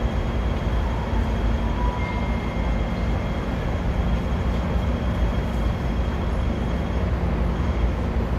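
Steady low rumble of city traffic and a stopped Hong Kong double-decker tram, with a faint steady hum, heard from the tram's upper deck.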